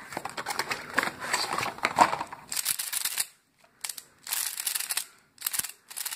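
Plastic packaging bag and cardboard box crinkling while a MoYu Pyraminx puzzle is unwrapped. From about halfway in, several short bursts of plastic turning noise follow as the Pyraminx's layers are twisted.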